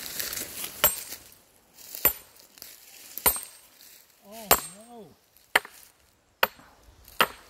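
Sledgehammer driving two steel splitting wedges into a log round to split it: seven sharp, ringing metallic clanks, about one a second.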